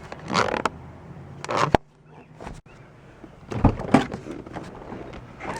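A few short handling noises: rustles and knocks, with a sharp click about a second and three-quarters in and two dull thumps near four seconds.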